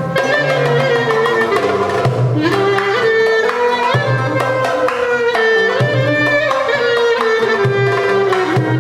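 Instrumental Turkish oyun havası (dance tune) in makam Hicazkar: a sliding, ornamented lead melody over a steady hand-drum rhythm.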